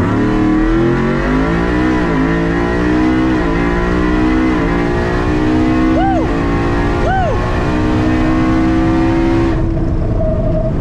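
Ford pickup's engine at full throttle, heard from inside the cab on a drag-strip pass. It climbs in pitch from the launch, drops briefly at three upshifts in the first five seconds, holds a high steady note, then falls away when the throttle is lifted near the end.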